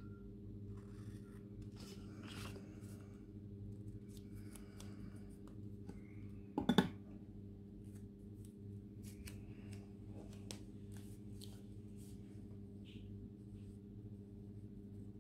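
Scissors snipping and paper pages rustling as they are handled, with one louder knock about seven seconds in, over a steady low hum.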